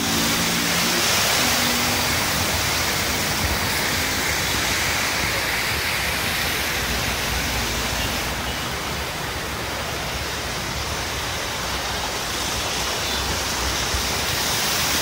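Floodwater pouring from a wall outlet and splashing into a full drainage channel: a steady rush of falling water, a little duller for several seconds past the middle.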